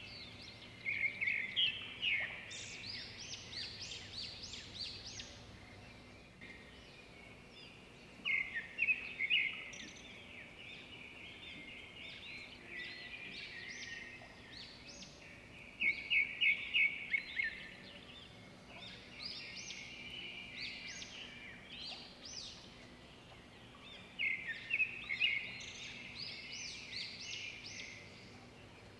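Small songbirds singing in bursts of quick, high chirping notes, one phrase every few seconds, over faint outdoor background noise.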